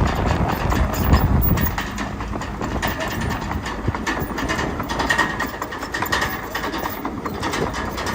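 Crawler bulldozer's diesel engine running, with the clanking of its steel tracks. It is louder for the first couple of seconds, then eases off.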